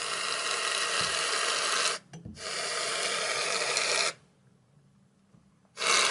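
Shaving foam spraying out of an aerosol can in a steady hiss, in three long squirts that start and stop sharply, the last beginning near the end.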